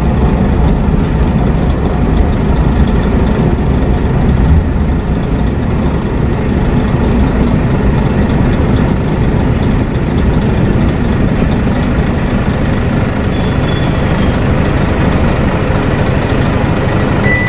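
Interior noise of a Kashima Rinkai Railway 6000 series diesel railcar: a steady rumble of the diesel engine and the wheels on the rails as the car runs into a station and slows to a stop.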